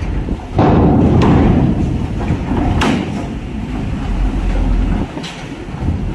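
A loaded cargo truck driving off a ferry's steel loading ramp: its wheels thud and clank over the ramp plates, over the low rumble of its diesel engine. The first heavy thud comes about half a second in, with more clanks near three seconds and five seconds.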